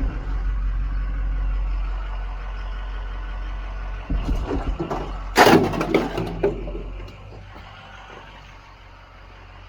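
A vehicle engine running with a steady low rumble that drops away about seven seconds in. About four seconds in comes a burst of loud clattering knocks, the loudest about a second later.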